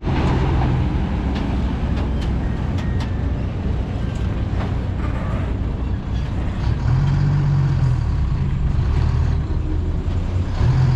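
Dump truck's diesel engine with a loud exhaust running in a low, steady drone. The engine note rises and holds about seven seconds in, and again near the end.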